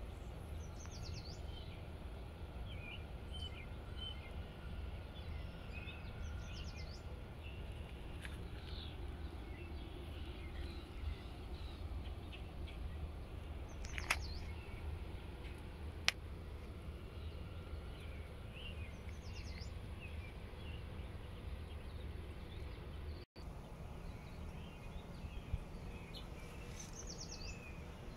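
Garden ambience: a steady low background rumble with faint small-bird chirps and short high trills every few seconds.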